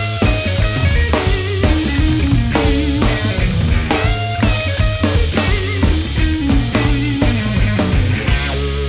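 Instrumental break of a live band performance: drum kit, guitar and bass playing a rock groove. Near the end the drums drop out, leaving held bass and guitar notes.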